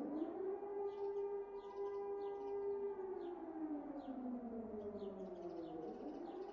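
Civil-defence air-raid siren wailing: its pitch climbs, holds steady for a couple of seconds, slowly falls away, and starts climbing again near the end. Faint short high chirps sound over it.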